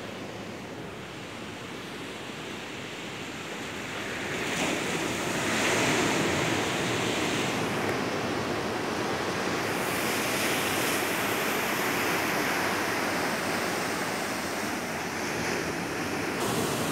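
Sea waves surging and washing among shoreline boulders, growing louder about four to six seconds in and then staying up.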